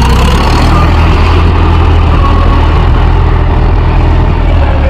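Mahindra 415 DI tractor's diesel engine running steadily under load while pulling a nine-tine spring cultivator through the soil.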